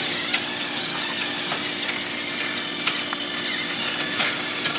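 Several battery-powered TrackMaster toy train motors whirring, their small plastic gears rattling steadily as the engines run on plastic track, with a few sharp plastic clicks.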